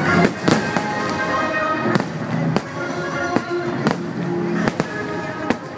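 Aerial fireworks shells bursting, a sharp bang about every half second, over the show's musical soundtrack.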